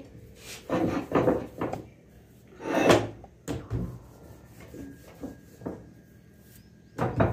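Wooden rolling pin and wooden rolling board knocking and rubbing as a ball of dough is pressed and rolled out, in a series of short uneven bursts with the loudest about three seconds in.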